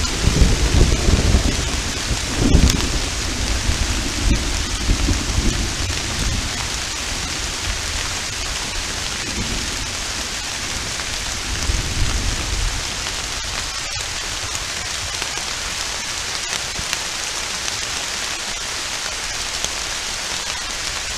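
Steady rain with rolling thunder. The thunder rumbles loudest in the first few seconds and fades out a little past halfway, leaving the rain alone.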